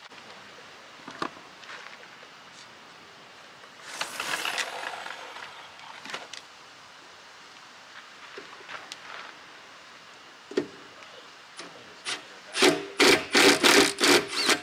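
Handling and tool noise: scattered clicks and knocks, a brief rustle about four seconds in, then a quick run of loud rasping strokes near the end, about three or four a second.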